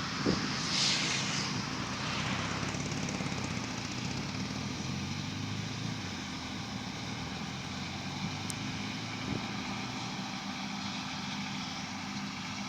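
John Deere harvest machinery running steadily under load, a diesel engine's even drone with a brief hiss about a second in.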